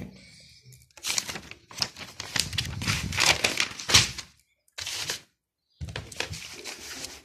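Paper rustling and shuffling as notebook pages and loose sheets are handled, in three rough stretches with short gaps between them.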